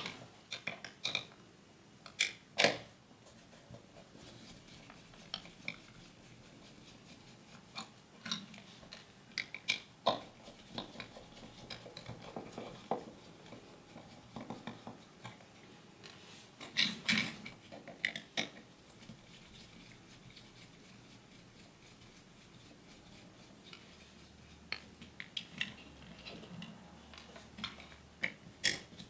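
Scattered small clicks, taps and clatter of tools and small parts being handled on a workbench, with a louder cluster of clicks about two seconds in and again around the middle.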